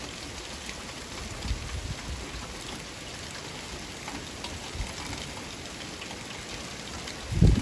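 Light rain falling, a steady patter of drops. Low rumbles of wind on the microphone come in now and then, the strongest near the end.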